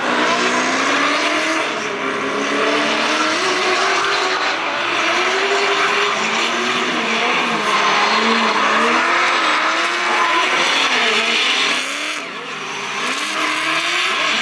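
Two drift cars in a tandem run: engines at high revs, pitch sweeping up and down as the throttle is worked, over the tyres squealing as they skid sideways.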